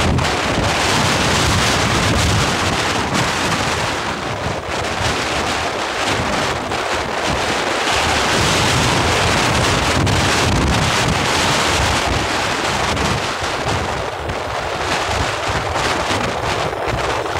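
Loud, steady wind buffeting the microphone of a camera moving along a road, a rushing noise with no pitched engine tone heard through it.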